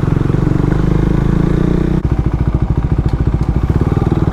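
Motorcycle engine running while riding, a rapid steady pulsing note; the engine note changes abruptly about two seconds in.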